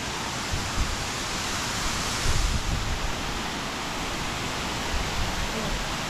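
Steady rushing noise of a large waterfall pouring over rock, with a few low bumps near the middle.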